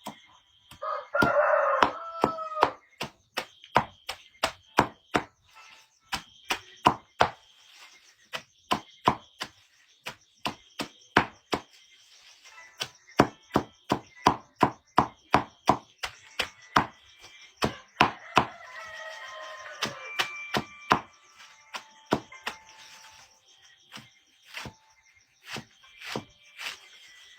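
A rooster crows near the start and again about two-thirds through, over a steady run of sharp chopping strikes, about two a second.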